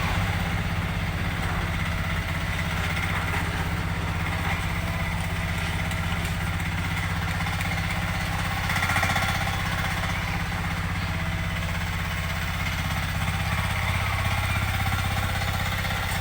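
Engine of a 900 kg mini excavator running steadily at a constant speed, with a brief louder swell about nine seconds in.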